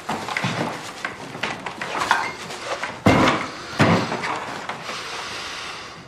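Clatter and knocks of objects being handled and set down, with two louder knocks about three and four seconds in.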